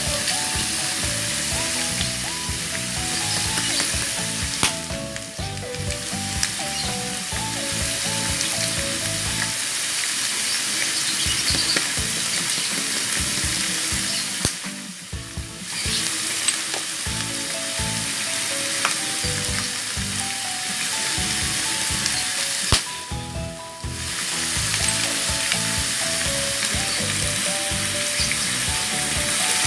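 Raw pork pieces frying in a nonstick wok, a steady sizzle that drops away briefly three times. A melody with a light beat plays under it.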